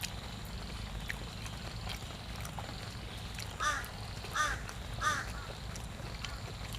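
A bird calling three times in quick succession, about two-thirds of a second apart, each a short harsh call.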